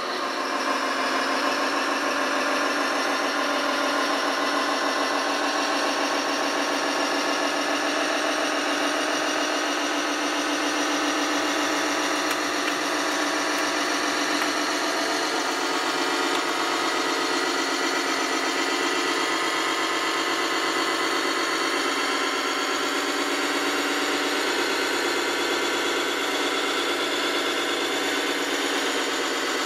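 Radio-controlled model Liebherr LTM 1055 mobile crane running steadily as it drives, an engine-like drone mixed with drive noise, thin and without deep bass.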